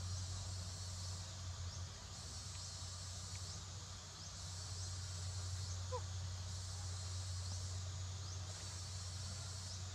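Steady high-pitched insect chorus over a constant low hum, with one short faint chirp about six seconds in.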